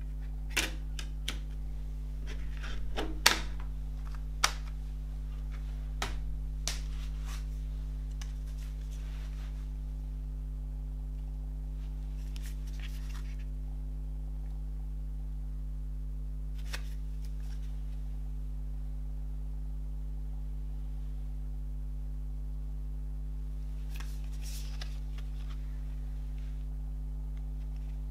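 Clicks and taps of a plastic CD jewel case being handled in the first seven seconds, with a sharp click about three seconds in as the loudest. Later come a few faint rustles from a cardboard CD sleeve and booklet being handled. A steady low hum runs underneath.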